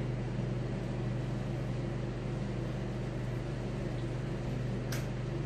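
Steady low hum over an even hiss, with a single brief tick near the end.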